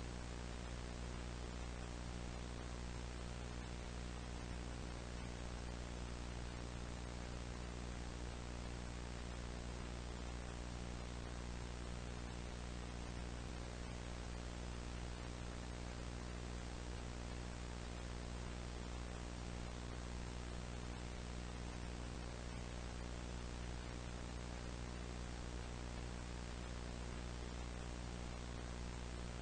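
Steady electrical hum with a layer of static hiss over it, unchanging throughout.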